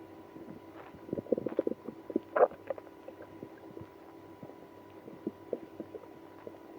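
Stomach and bowel gurgling of a person with IBS: a quick run of gurgles about a second in, one louder gurgle soon after, then scattered faint pops.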